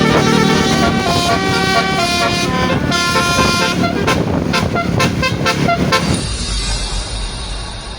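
Basuri musical air-horn system on a bus playing a melody: a run of loud horn notes stepping from pitch to pitch. About six seconds in it cuts off to a low rumble of engine and road noise.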